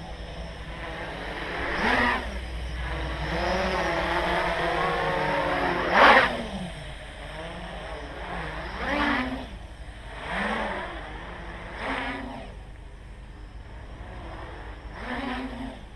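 Armattan CNC 355 quadcopter's electric motors and propellers whining, rising and falling in pitch and loudness in repeated throttle bursts every one to three seconds. The loudest burst comes about six seconds in.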